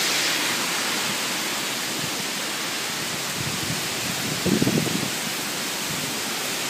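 Heavy rain pouring down steadily in strong wind. About four and a half seconds in, a gust rumbles on the microphone.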